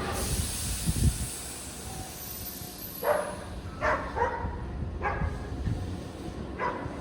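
A Tobu 8000 series electric train letting out a sudden burst of compressed-air hiss that fades over about three seconds, followed by four separate clunks about a second apart.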